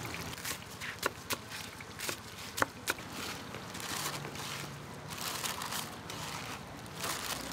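Food-prep handling at a fried-snack stall: a few sharp knocks of a cleaver on a wooden cutting board in the first three seconds, with rustling of paper snack bags.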